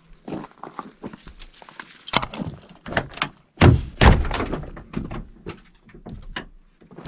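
A run of irregular knocks and clatter, with a heavy thud about three and a half seconds in.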